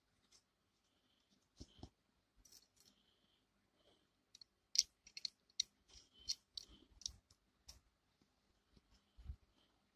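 Plastic LEGO bricks clicking as they are handled and pressed together, with a quick run of sharp clicks about halfway through.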